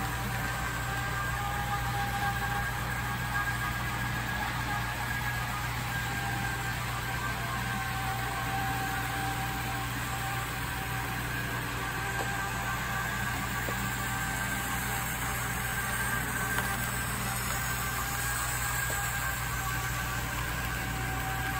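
Motorized 00 scale model Garratt locomotive running on the track, its large motor, chain drive and gearboxes making a steady whirring hum with a thin high whine. It is kind of noisy because of the chain drive.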